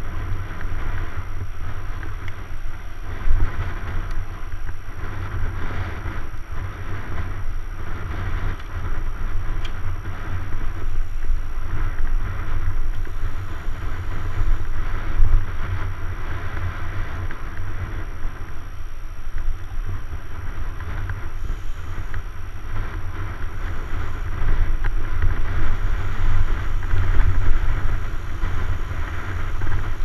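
Steady wind rumble on the microphone of an action camera riding on a mountain bike, mixed with the hiss of knobby tyres rolling on asphalt.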